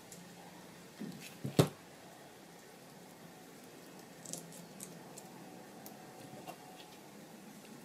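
Quiet hand-crafting noises: small paper flowers and card being handled, with a couple of soft knocks and one sharp knock about a second and a half in as the plastic glue bottle is laid down on the table, then faint light ticks and rustles.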